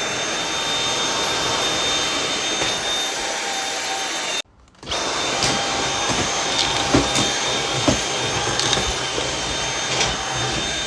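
Dyson V7 cordless stick vacuum running with a replacement floor brush head: a steady whir with a thin high motor whine. It cuts out for about half a second around four and a half seconds in, then runs on, with a few light ticks.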